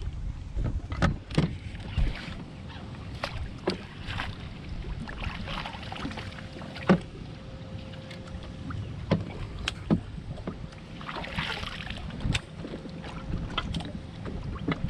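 Wind rumble on the microphone aboard a bass boat, with scattered sharp clicks and knocks from a rod and reel being handled on deck; the loudest knock comes about seven seconds in. A faint steady hum runs through the middle stretch.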